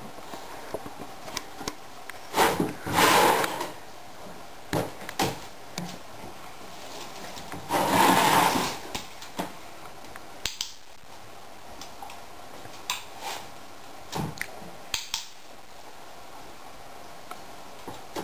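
A Border Collie puppy's paws and a plastic box scraping and knocking on a wooden floor as the puppy steps about in the box: two longer scrapes, a couple of seconds in and about eight seconds in, with scattered light knocks between.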